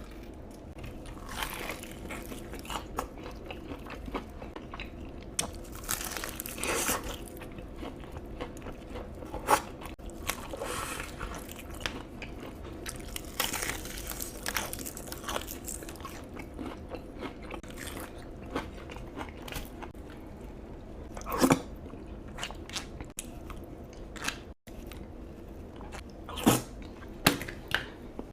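Close-miked eating: crunchy bites and chewing of crisp food, with irregular sharp crunches throughout, a few of them much louder.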